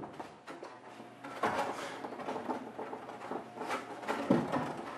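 Small taps, knocks and rubbing from pieces of a handmade scale model being handled and fitted together on a work table, in short irregular bursts.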